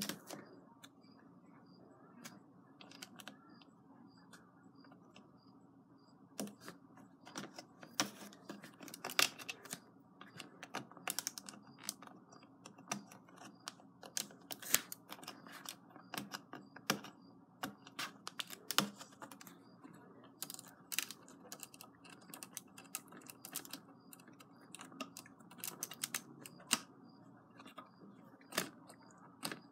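LEGO bricks being handled and pressed onto a plastic baseplate: irregular sharp plastic clicks and clacks, sparse at first and coming thick and fast from about six seconds in, over a steady background hum.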